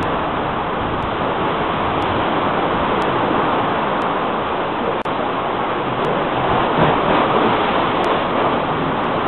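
Ocean surge rushing and churning in a narrow rock inlet at a blowhole-like sea cave that spits out water and air, a steady rush that swells a little near the end as a wave blows spray out of the cave.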